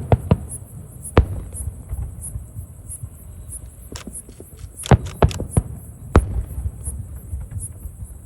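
Fireworks going off: sharp bangs over a continuous low rumble. There is a cluster of bangs at the start, one about a second in, a quick run of them around five seconds in, and another just after six seconds.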